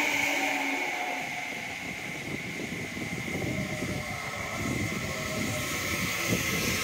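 Seibu 30000 series electric train under way, heard from inside the car: a steady whine from its Hitachi IGBT-VVVF inverter and traction motors over the rumble of the wheels on the track.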